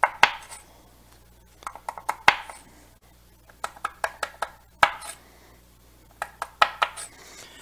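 Kitchen knife tapping and chopping through asparagus spears onto a wooden cutting board, in short clusters of sharp knocks a second or two apart. The blade is tapped along each spear and cuts through where the stalk is tender, leaving the tough woody ends behind.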